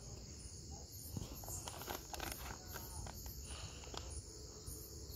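Crickets chirping steadily in a high, pulsing trill, with a few faint rustles and clicks of handling.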